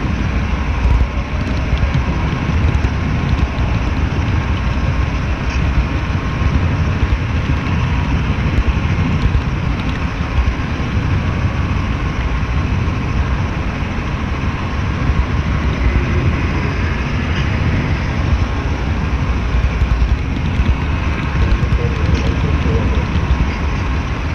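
Steady rolling rumble of an HO-scale model train's wheels running on the track, carried into a camera riding on a flatcar directly behind the Santa Fe diesel locomotive.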